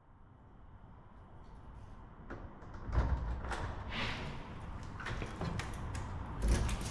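A run of knocks and thuds over a low rumble, growing louder, with a heavier thump near the end.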